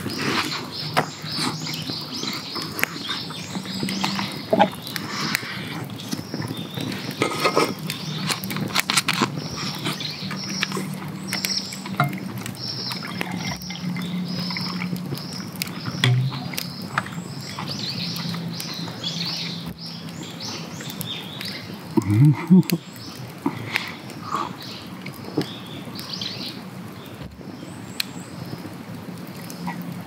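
Outdoor forest ambience with birds chirping and many small crackles and clicks, beer poured from a large can into a glass about halfway through, and a brief louder low sound about two-thirds of the way in.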